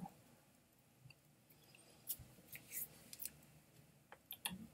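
Near silence broken by a few short, faint clicks and soft rustles of hands and clothing moving, in a cluster past the middle and another near the end.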